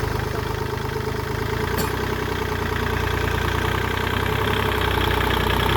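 Engine of a tractor or backhoe running steadily at idle, with a short click about two seconds in.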